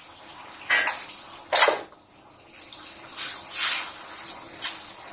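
Wet, freshly washed raw chicken pieces being dropped by the handful into a metal cooking pot: about four short wet slaps and splashes, the second the loudest.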